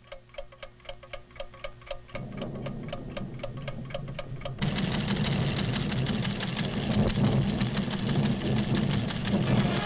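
Cartoon sound effect of scientific recording instruments ticking rapidly and evenly, about five ticks a second. About two seconds in a low rumble starts under the ticking, and a little before halfway a loud, dense rumble of the volcano's tremor swamps it.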